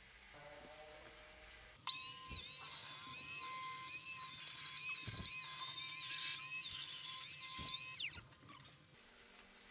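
Handheld trim router running at high speed: a loud, high-pitched whine that starts abruptly about two seconds in, wavers in pitch as the bit cuts into the plywood, and drops away about eight seconds in.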